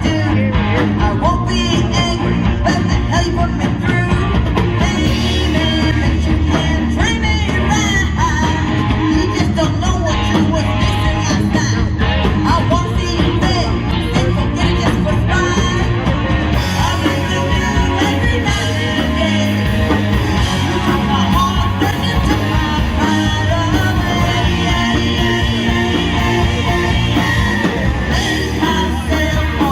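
Live rock band playing a song with a lead vocal; the high end of the mix gets brighter about halfway through.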